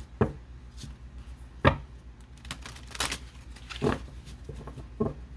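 Soft knocks and taps of tarot cards being handled and set down on a table: five irregular knocks, the loudest a little under two seconds in.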